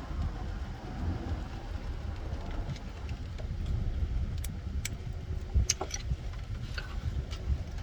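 A few sharp clicks and taps from hands and tools working in a car's engine bay, mostly in the second half, over a steady low rumble.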